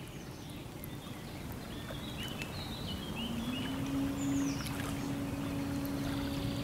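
Outdoor ambience: a steady low rumble with a few short bird chirps, then about three seconds in a single steady low tone sets in and holds.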